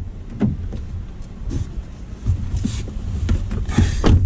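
Knocks, thumps and rustling inside a car cabin as a person climbs into the driver's seat, the loudest knocks coming near the end, over a steady low rumble.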